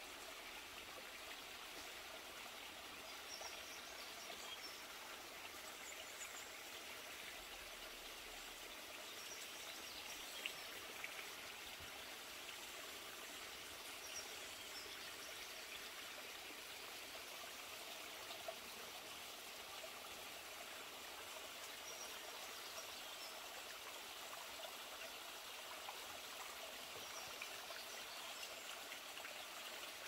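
Steady, faint rush of a small forest stream running over stones.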